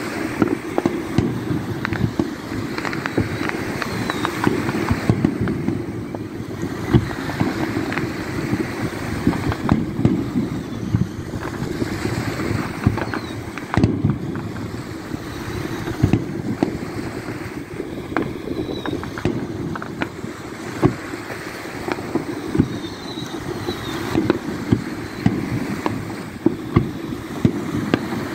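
Aerial firework shells going off in an irregular string of sharp booms and cracks, one every second or two, over a steady rush of wind on the microphone.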